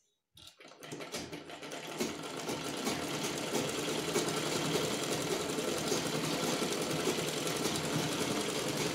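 Usha sewing machine stitching fabric: a rapid, steady run of needle strokes that starts a moment in and grows louder over the first couple of seconds.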